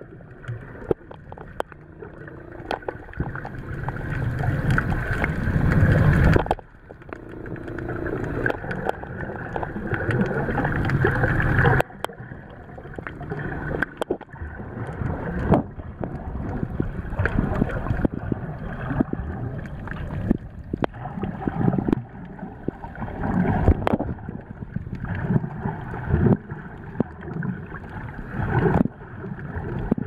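Muffled underwater noise as heard by a submerged camera: water rushing and gurgling past as it moves, swelling and falling, with sudden drops about six and twelve seconds in, and scattered faint clicks.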